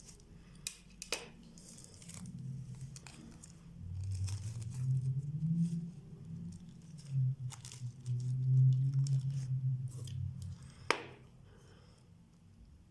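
Small tools clicking and scraping on a wristwatch during disassembly, with a few sharp clicks and light handling noise. A low wavering hum sounds through the middle.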